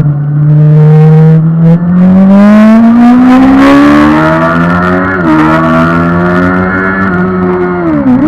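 Suzuki GSX-R 750's inline-four engine heard from on board, accelerating hard with the pitch climbing steadily. The revs dip briefly about five seconds in, as at a gear change, then climb slowly again before falling sharply near the end.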